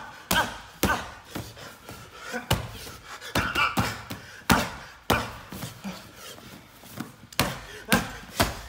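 MMA-gloved fists punching down into a heavy bag lying on a mat, ground-and-pound strikes landing as irregular hard thuds, about one or two a second.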